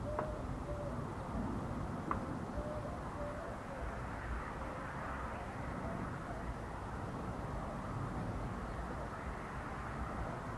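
Steady low outdoor background rumble, with a bird cooing softly in short repeated notes over the first few seconds and two faint clicks.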